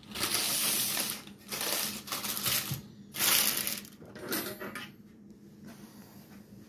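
Wax paper rustling and crinkling in several short bursts as it is handled, quieter over the last two seconds.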